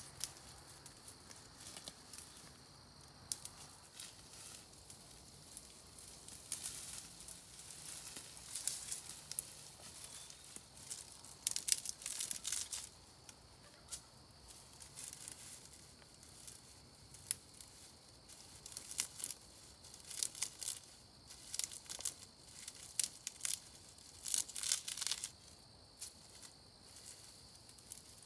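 Dry grass and underbrush being pulled up and torn by hand, in irregular bursts of crisp rustling and crackling.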